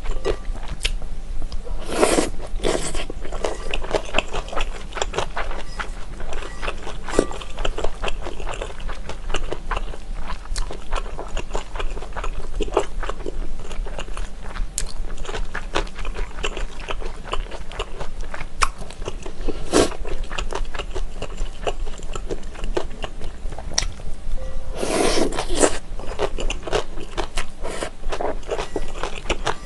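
Close-miked mouth sounds of eating chewy Chinese glass noodles in spicy sauce: wet, sticky chewing with many small clicks throughout, and two longer, louder slurps of noodles, about two seconds in and near the end.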